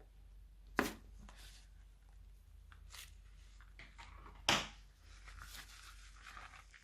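Slime being squished and pulled by hand: soft sticky crackling with two sharp pops, one about a second in and one past the middle.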